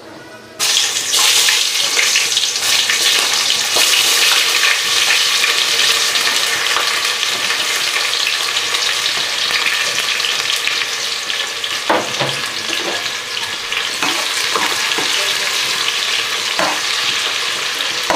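Finely chopped onions sizzling loudly in hot oil in a pot on a high gas flame. The sizzle starts abruptly under a second in, and a stirring spoon knocks a few times against the pot in the second half.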